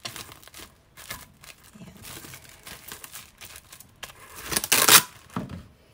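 Plastic cling wrap crinkling as it is pressed down and smoothed over a bowl by hand, with a louder crackle near the end.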